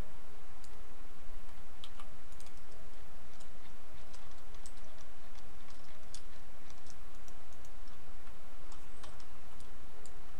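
Computer mouse clicks and keyboard key presses, scattered and irregular, over a steady low hum.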